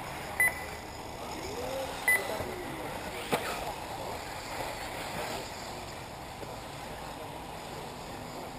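Two short, high electronic beeps about a second and a half apart over steady outdoor background noise, with a single sharp click about three seconds in.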